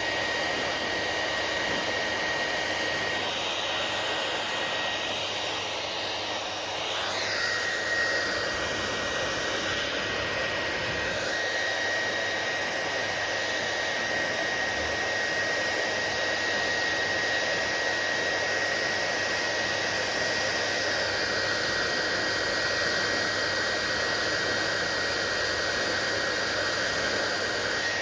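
Hair dryer running continuously: a steady rush of air with a thin whine, the sound shifting briefly about seven seconds in.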